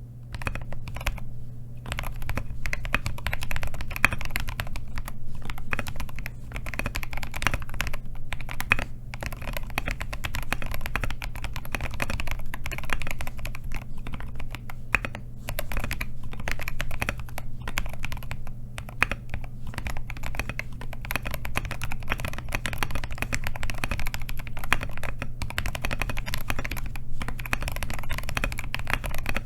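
Typing on a Scarlet TKL mechanical keyboard, with lubed and filmed C3 Equalz Tangerine linear switches on a tape-modded POM plate and MG Ghost keycaps: a continuous, uneven run of keystrokes across the letter keys. A steady low hum runs underneath.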